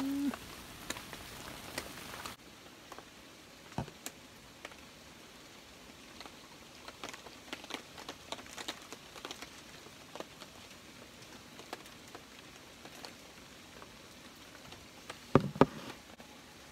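Rain pattering steadily, with scattered sharp drop ticks. In the first two seconds a hot pot simmers, then cuts off abruptly. Near the end, a couple of louder knocks of glass on the table.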